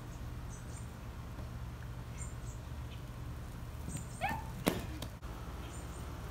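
Steady low outdoor rumble with faint high chirps now and then. About four seconds in comes a short rising squeal, followed by a single sharp click.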